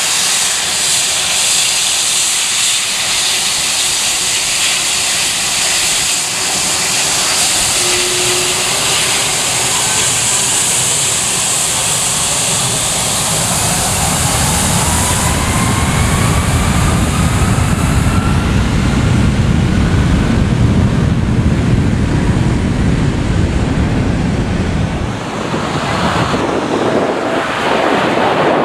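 Boeing 757-200's twin jet engines with a high hiss and whine at low power, then spooling up with a rising whine and a deepening, heavy rumble as thrust builds for takeoff about halfway through. Near the end, the jet blast gusts across the microphone as wind noise.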